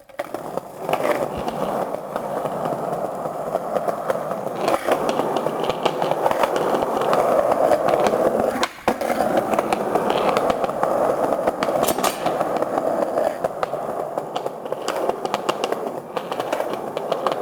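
Skate wheels rolling steadily over cement pavement, a continuous rolling noise scattered with small clicks. The sound drops out briefly about nine seconds in.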